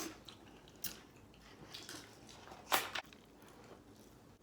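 Close-up mouth sounds of biting and chewing crunchy fried chicken, with a few short crunches; the loudest comes near three seconds in.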